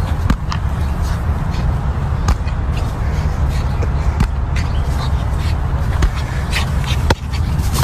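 Wind rumbling on the microphone, with scattered light taps and thuds of an inflatable beach ball being knocked and bounced along the ground.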